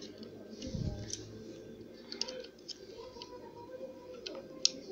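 Plastic Lego bricks clicking and tapping as they are handled and pressed onto a Lego truck, with scattered light clicks and a dull thump about a second in.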